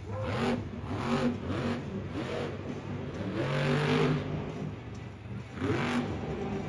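Monster truck engine revving hard in repeated bursts, the pitch sweeping up and falling back with each stab of throttle as the truck drives across the dirt.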